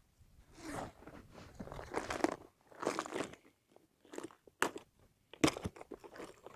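Handling noise close to a body-worn camera: rustling and crunching of sleeves and a clear plastic tackle box being handled. In the second half there are a few sharp plastic clicks.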